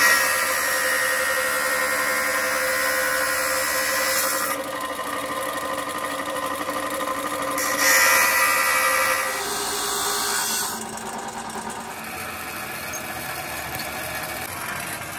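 Electric abrasive cut-off saw grinding through steel bar, a loud harsh grind for the first four seconds and again around eight seconds. After about eleven seconds it drops to a quieter steady run as the wheel spins without cutting.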